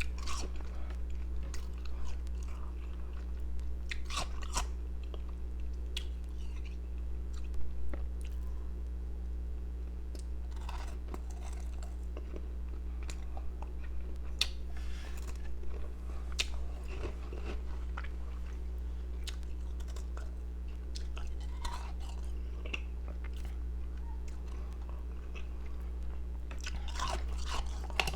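A person biting and chewing pieces of powdery, carbonated ice, with scattered crisp crunches, more of them close together near the end. A steady low hum runs underneath.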